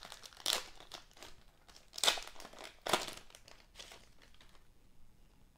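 A wax-paper trading card pack wrapper crinkling and tearing as it is pulled open by hand, in sharp bursts about half a second, two seconds and three seconds in, then softer rustling as the cards are handled.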